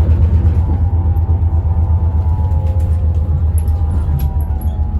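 Daewoo FX116 coach under way, its engine giving a steady, loud deep rumble with a faint whine that slowly drops in pitch.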